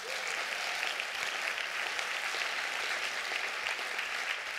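Audience applauding: dense, steady clapping that begins to fade near the end.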